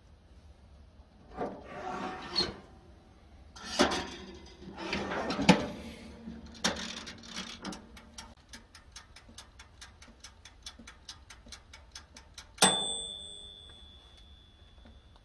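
An old toaster oven being worked: knocks and rubbing of handling, then a run of even mechanical ticks at about four or five a second from its dial. The ticks end in a single sharp bell ding whose ringing tone fades over about two seconds.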